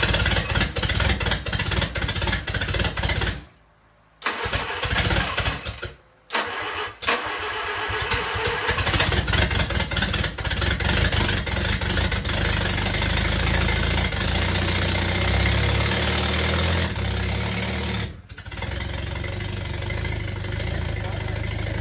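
1945 Willys MB's L134 four-cylinder flathead engine on its first start after a rebuild: the starter cranks it in short bursts with two brief pauses, it catches about seven seconds in and runs, then drops to a steadier, lower speed about eighteen seconds in.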